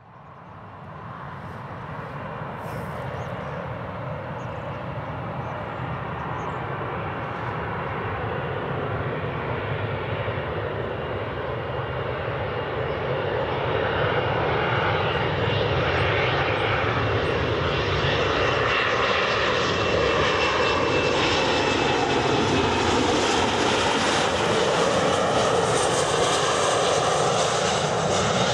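Boeing 737-400 airliner's CFM56 turbofan engines on final approach: a jet rumble with a thin whine on top, growing steadily louder for about the first half as the aircraft draws near, then holding loud.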